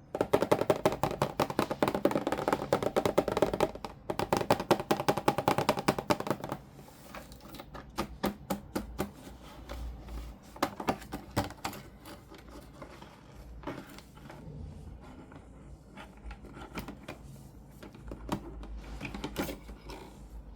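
Plastic toy packaging and parts handled by hand: rapid, dense clicking and tapping for about the first six seconds, then sparser separate clicks and light knocks.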